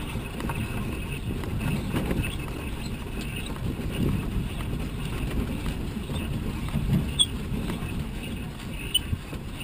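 Low rumble and irregular thuds as a giant-scale RC Piper Cub is walked by hand across grass on its landing gear, with wind on the microphone; its engine is not running.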